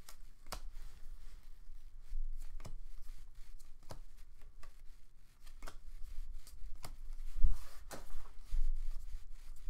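Panini football trading cards being flipped through by hand, each card pushed off the stack with a sharp snap, irregularly at roughly two a second. A dull thump about seven and a half seconds in.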